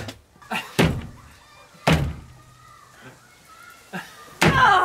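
Sharp wooden thuds as a built-in wooden wardrobe panel is knocked and wrenched loose: two hard knocks, then a louder, longer jumble of noise near the end.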